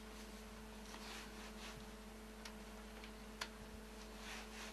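Faint steady electrical hum with two soft clicks, the sharper one about three and a half seconds in.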